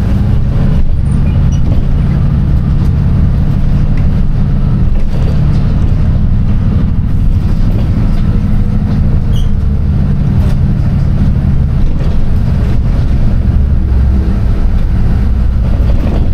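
Loud, steady low rumble of a running vehicle engine.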